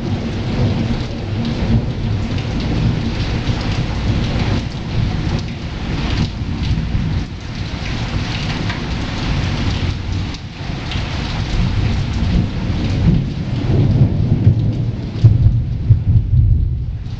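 Steady rain falling with thunder rumbling low underneath; the thunder swells louder in the last few seconds.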